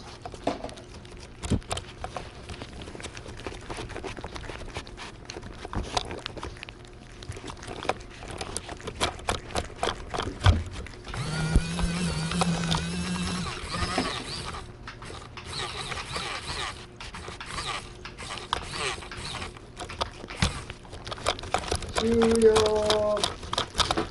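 Cats licking and lapping a lickable paste treat right up against the microphone: a dense, uneven run of wet clicks and smacks. A pitched, voice-like sound lasts about three seconds near the middle, and a short pitched call comes near the end.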